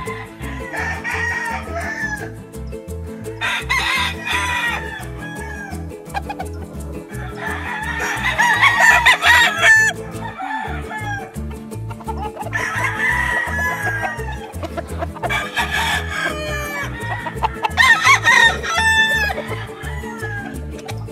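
Roosters crowing in turn, about five long crows, the loudest near the middle and near the end, over background music with a steady beat.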